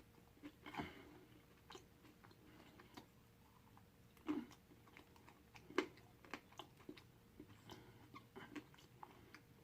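Faint close-up chewing of a mouthful of pizza, soft mouth clicks and smacks, with a few louder bites about one, four and six seconds in.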